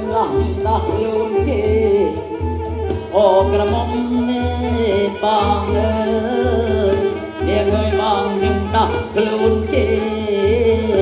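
Live kantrum, the Northern Khmer folk music of Surin: a singer's voice sliding in pitch over sustained instrument tones and a steady drum beat.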